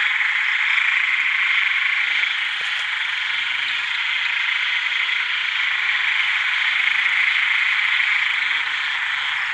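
Male red narrow-mouthed frogs (อึ่งแดง) calling to attract females: short low calls, "aed, aed", repeating about once a second, over a dense steady high-pitched chorus of frogs.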